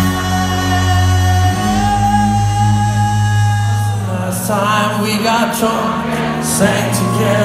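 Live rock band playing through a concert-hall PA: a held chord with sustained guitar and bass for about four seconds, then a singer comes in over the band.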